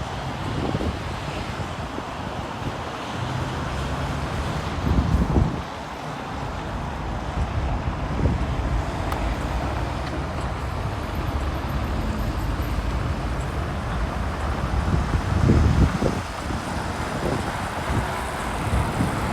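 Steady road traffic with wind buffeting the microphone, the gusts swelling loudest about five seconds in and again about three-quarters of the way through.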